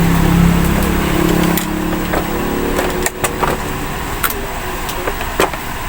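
A low steady hum, strongest in the first two seconds and then fading, with scattered sharp clicks and knocks throughout.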